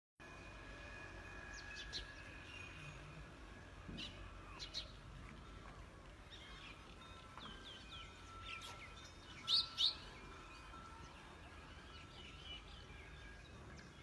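Several birds chirping and calling over a faint steady outdoor background, with two loud calls close together a little past the middle.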